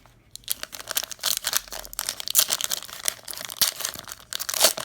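Plastic wrapper of a basketball trading-card pack being torn open and crinkled by hand, a rapid run of irregular crackles.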